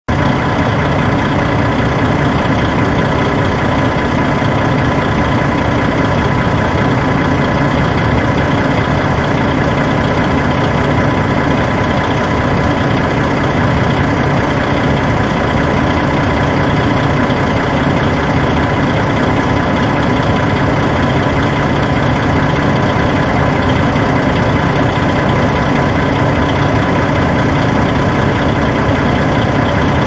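Bus engine idling steadily, a constant low hum with a thin steady high whine on top.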